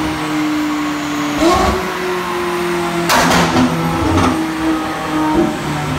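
McLaren 675LT's M838T twin-turbo V8, breathing through a custom Secret Weapon exhaust, revving: the engine tone is held steady with a short rise about a second and a half in. About three seconds in, the revs drop and the exhaust crackles and pops as it spits flames, with more pops about a second and two seconds later.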